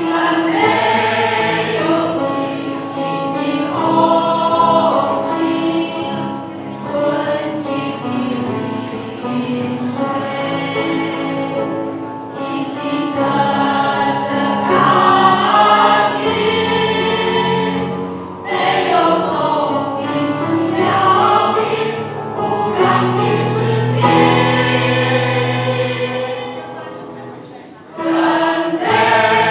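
A choir singing a song with piano accompaniment, in sustained phrases with short breaks between them.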